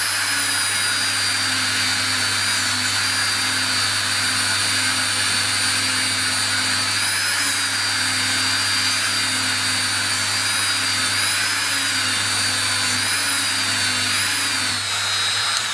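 Dremel rotary tool driving a flexible-shaft handpiece with a polishing pad, buffing jumbo guitar frets with polishing paste: a steady high motor whine over a low hum, its pitch dipping slightly a few times. A racket.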